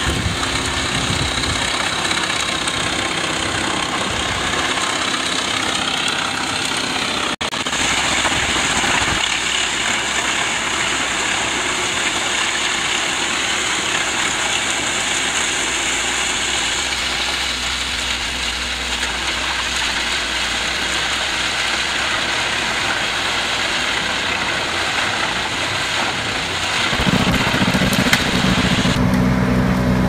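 Trailed wood chipper with a hydraulic crane feeding arm, running steadily. There is a short break about a quarter of the way in, and a deeper, louder engine note over the last few seconds.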